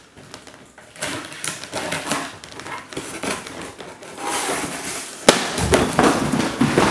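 Scissors cutting and scraping through the tape and cardboard of a box, then a sudden sharp bang about five seconds in, followed by louder commotion.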